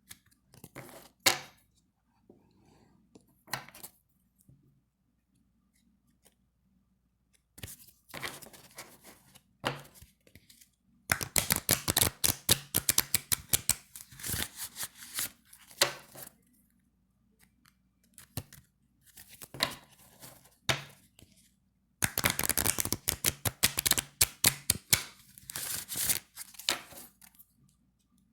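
A deck of playing cards being shuffled. There are two long runs of fast fluttering clicks as the thin, slick cards fall together, and shorter bursts and single snaps of cards between them.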